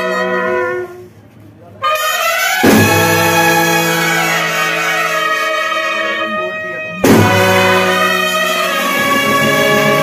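Brass band playing long, held chords on trumpets, trombones, clarinet and a large bass horn over bass drum and hand cymbals. The band breaks off about a second in, comes back in loud, and hits a drum-and-cymbal crash soon after, with another crash about seven seconds in.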